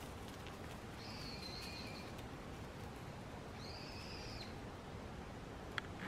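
Two long, steady high whistles, each held for about a second and spaced a couple of seconds apart, over quiet woodland background hiss, followed by a single sharp click near the end.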